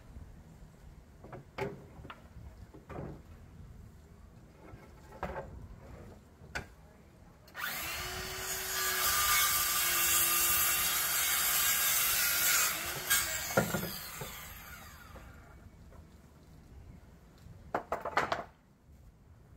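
Handheld electric circular saw cutting through a wooden board for about five seconds, its motor whining steadily, then winding down with falling pitch after the cut. Scattered knocks of the board being handled before and after.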